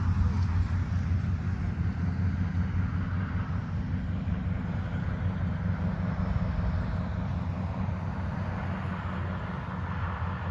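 Steady low rumble and hiss of a vehicle in motion, engine and road noise.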